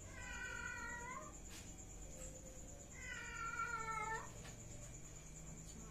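A cat meowing twice: two long, drawn-out meows about three seconds apart, the second one louder, over a faint steady high-pitched whine.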